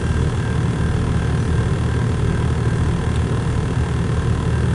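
Steady low rumble of a long double-stack intermodal freight train rolling past.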